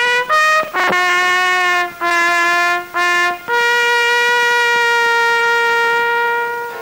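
A fanfare on a lone brass instrument: a few short notes, a lower note sounded three times, then a long held note of about three seconds that fades out near the end.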